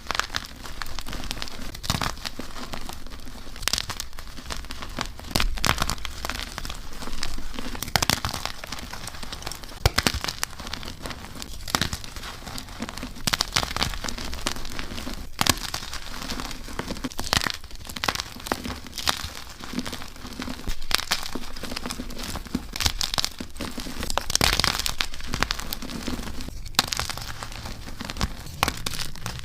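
Blocks of dyed and reformed gym chalk being crushed and crumbled, a continuous crunching and crackling with frequent crisp snaps.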